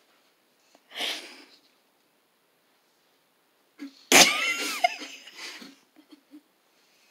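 Two short non-speech bursts from a person's voice: a breathy one about a second in, then a louder, sudden one a little past the middle with a brief rise and fall in pitch.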